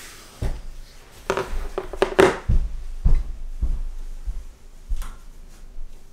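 A person getting up from an office chair and walking off across a wooden floor: a creak or two from the chair, then a run of dull footstep thumps about two a second, with a last few thumps about five seconds in.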